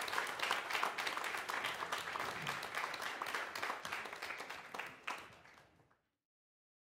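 Audience applauding, a dense patter of many hands clapping that thins and fades out about five seconds in, leaving dead silence.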